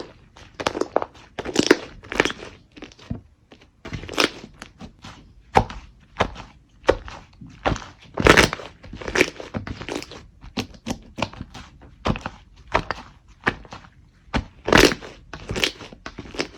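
Slime being squeezed and poked by hand, giving a run of irregular sharp pops and crackles, several a second.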